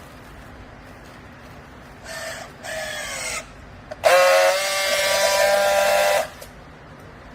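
Horn-like pitched blasts: two short ones whose pitch sags, then one long steady blast lasting about two seconds.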